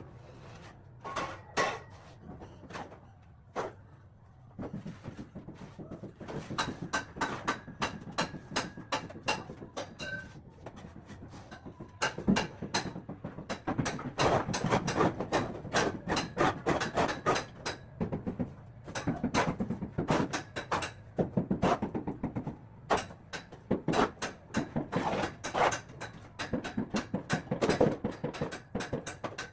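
Irregular scraping and knocking of a mason's tool in a plastic bucket of plaster mix, growing busier partway through.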